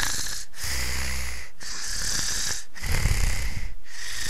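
Snoring sound effect: loud hissing breaths with a short pause about once a second, and a low snore twice.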